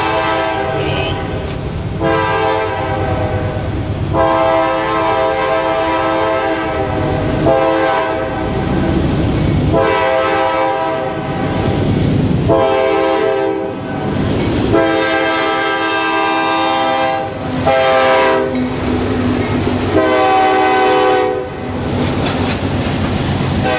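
Freight train's locomotive horn sounding a long series of long and short blasts as it approaches the crossing, over the low rumble of the train. Near the end the freight cars roll through the crossing.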